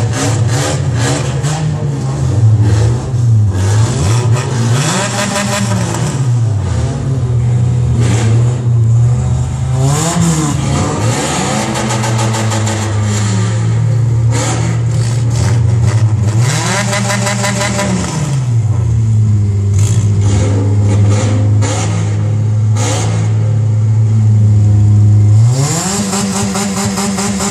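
Car engines revved hard over and over, each rev climbing, holding near the top for a moment or several seconds, then dropping back, with a long held rev near the end that falls away shortly before the end.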